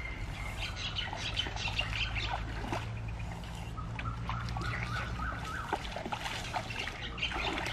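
Birds chirping and calling, with water splashing as a child wades through a shallow stream.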